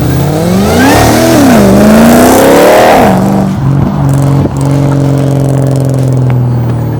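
Jaguar XF's engine being revved. The pitch climbs, dips, then climbs to a peak about three seconds in before dropping back and holding a steady lower note.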